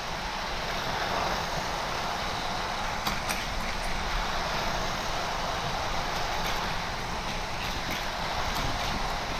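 Die-cast toy cars rolling along plastic racetrack, a steady rushing rattle with a couple of sharp clicks about three seconds in.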